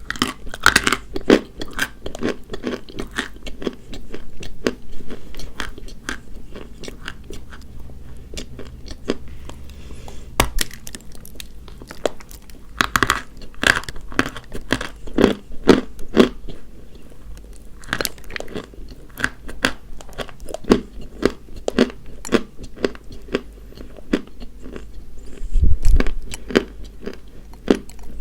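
Dry white chalk being bitten and chewed close to the microphone: a steady run of irregular, sharp crunches, with a louder low thump near the end.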